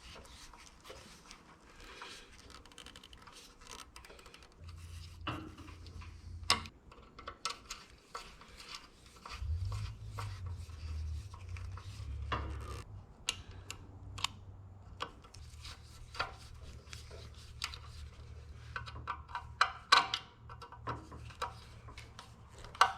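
Hand tools and small metal parts being handled while wiring a band saw motor: scattered clicks, taps and rattles. A faint low hum comes in briefly about five seconds in and again from about ten seconds in.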